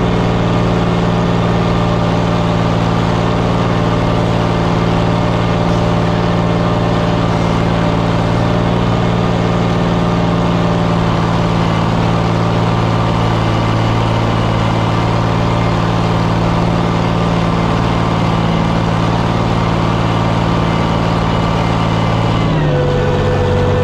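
Farm stock pulling tractor's engine running steadily at full throttle under load as it drags the pulling sled. Near the end the engine note drops as the pull ends and the engine comes off full power.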